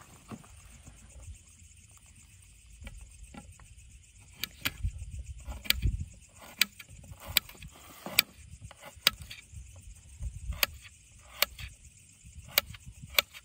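Small kitchen knife slicing garlic cloves on a plate, the blade clicking against the plate about once a second from around four seconds in.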